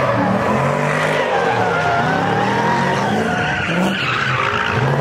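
Car engine revving hard while the tyres squeal, the car sliding in donuts on asphalt; the engine pitch rises and falls.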